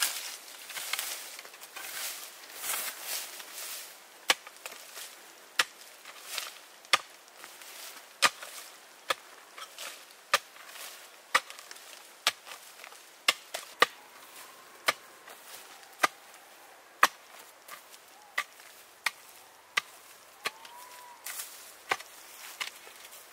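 Rhythmic chopping, a sharp stroke about every two-thirds of a second, as a hand tool hacks into the ground to dig out winter bamboo shoots. A few seconds of rustling come before the strokes begin.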